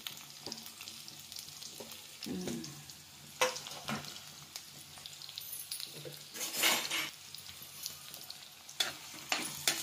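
Chopped onions frying in hot oil in a kadhai: a faint steady sizzle with scattered sharp crackles and spatters.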